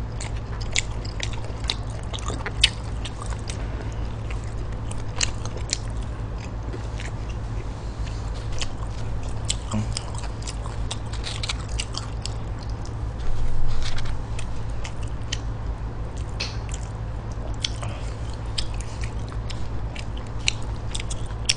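Close-miked chewing and biting of spicy stir-fried pig intestines and rice, with many small wet mouth and chopstick clicks, over a steady low hum. A short louder noise comes about 13 seconds in.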